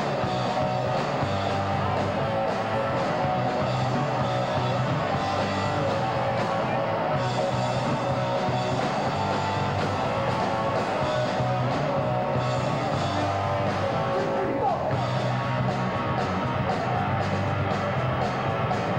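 Punk rock song in an instrumental stretch: electric guitars playing steady chords over bass and drums.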